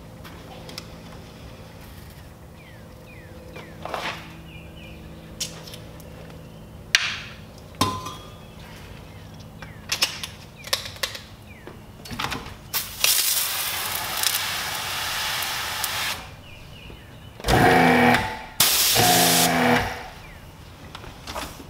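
Pressure-washer gear being readied: scattered clicks and knocks of the spray gun and lance fittings, then a few seconds of hissing spray. Near the end the electric pressure-washer pump motor runs in two short loud bursts.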